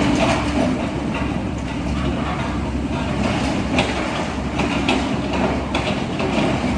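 Heavy diesel machinery running: a steady low engine rumble mixed with continuous rattling and clanking.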